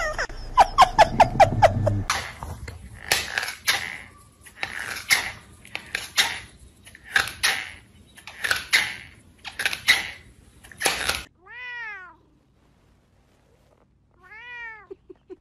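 Cats in a string of short clips: a quick run of about six short, high cries at the start, then a series of noisy scratchy sounds roughly once a second, then a kitten's two drawn-out meows near the end.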